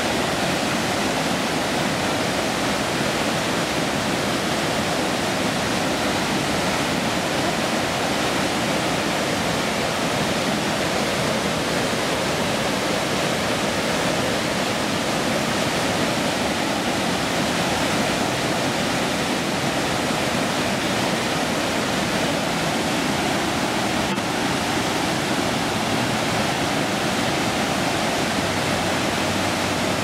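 River water pouring steadily over a low rock step into a small cascade, a constant rushing of white water.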